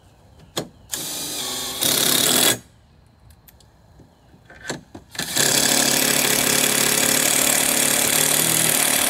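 Cordless impact driver driving the strut bolts back into a golf car's front strut. A short run about a second in starts with a plain spin and breaks into hammering. After a pause with a few light clicks, a long, steady hammering run begins about five seconds in and is still going at the end.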